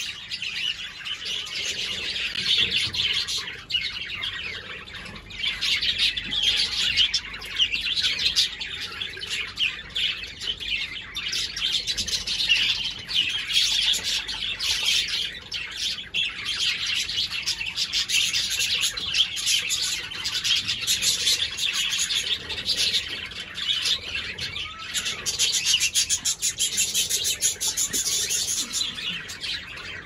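Aviary birds, cockatiels among them, chirping and chattering continuously, with a stretch of very rapid chatter near the end.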